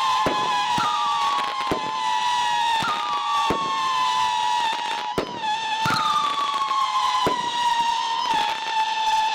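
Lost Souls 500-gram 21-shot firework cake firing its howling whistle shells. Several high screams overlap; each jumps up in pitch as it launches, then slowly sags. Sharp shot bangs come about once a second.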